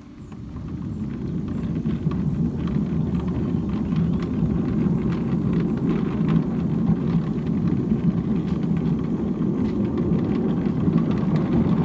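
Battery-electric ride-on garden locomotive pulling away and running along steel bar-stock track: a steady rumble of wheels on the rails that builds over the first couple of seconds, with frequent scattered clicks.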